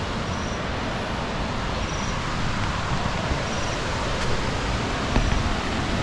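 Steady outdoor rushing noise with uneven low rumbling, with a few faint high chirps recurring.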